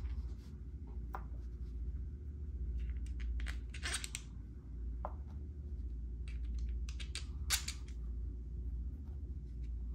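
Hard plastic gearbox housing and small metal screws clicking and rattling in the hands as the gearbox of an Axial RBX10 Ryft RC rock bouncer is fitted together, in scattered clusters over a steady low hum.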